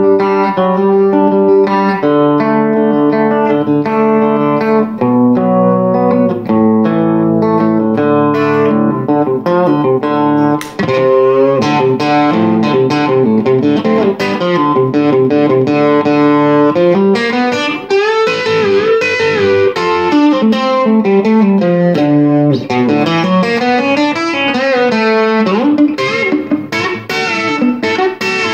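Electric Telecaster guitar played through a small Fender tube amp, with a chorus pedal just switched on over compression, playing a 90s country chicken-picking lead line. Quick picked single notes come first, then a run of string bends in the second half.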